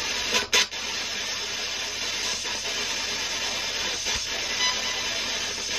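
Steady background hiss, with one short sharp click about half a second in.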